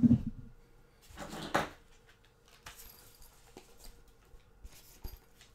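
Small objects handled on a desk: a brief rustle about a second in, then light taps and clicks as the next item is picked up.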